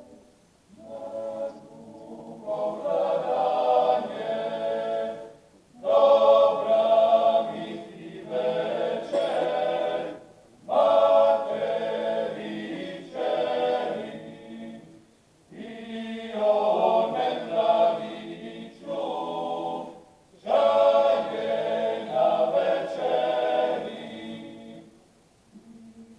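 Croatian klapa, a male a cappella vocal group, singing in close multi-part harmony. The song comes in five phrases of about four to five seconds each, with a short break for breath between them.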